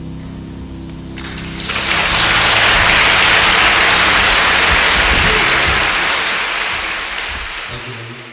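The last held chord of the song dies away, then audience applause starts about a second and a half in, swells, and tapers off near the end.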